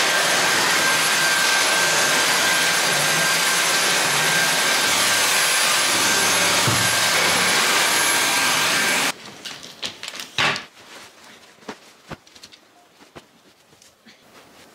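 Dyson cordless stick vacuum cleaner running steadily, a loud rushing hiss with a thin high whine on top. It stops abruptly about nine seconds in, and a few light knocks and clicks follow.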